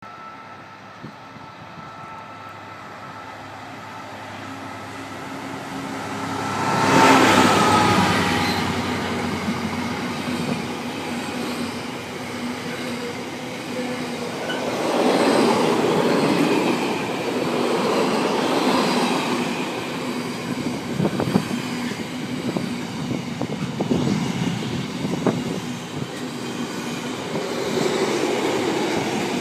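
A British Rail Class 66 diesel-electric freight locomotive, with its two-stroke V12 EMD engine, approaching and passing close, loudest about seven seconds in. The container wagons of its freight train then rumble past, with wheels clicking on the rails.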